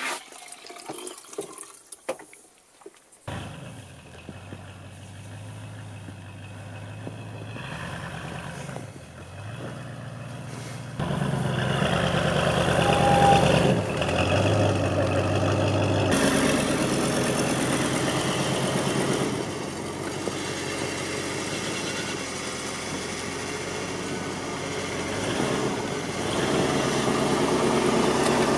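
A few faint knocks, then an old Ford pickup's engine running steadily under load while its rear tyre spins in deep snow. The engine gets louder about eleven seconds in.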